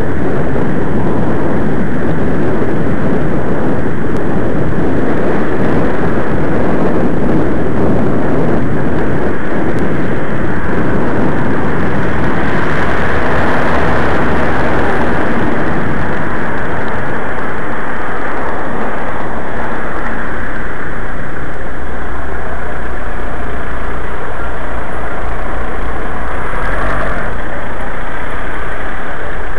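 Steady, loud noise of city road traffic, with cars and a bus close by, picked up by a camera riding among them on a bicycle.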